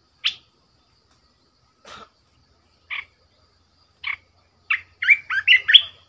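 Bulbul calling: short sharp call notes about once a second, then a fast run of louder song notes near the end.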